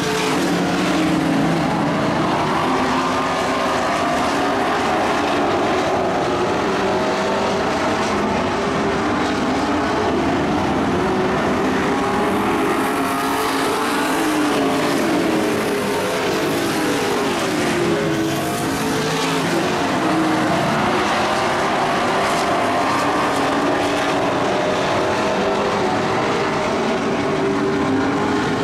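A pack of dirt-track race trucks' engines running hard at once, many engine notes overlapping and rising and falling as the trucks lap the track.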